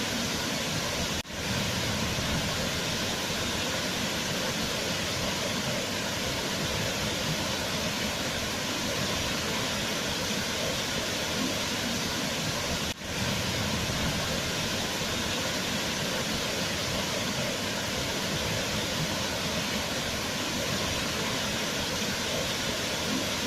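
Waterfall rushing in a steady, even roar of falling water, with two brief dropouts about a second in and about thirteen seconds in.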